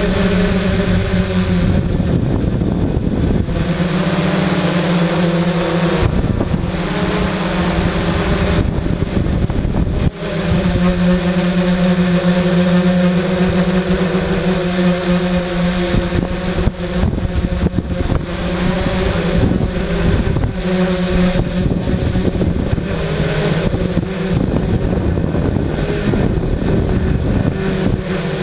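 Homemade quadcopter's electric motors and propellers whirring, heard through the onboard GoPro's microphone, their pitch rising and falling as it manoeuvres. Wind rumbles on the microphone underneath.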